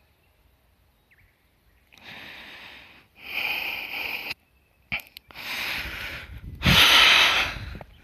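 A person breathing heavily close to the microphone: about four breaths in and out, each about a second long, after a couple of seconds of near silence.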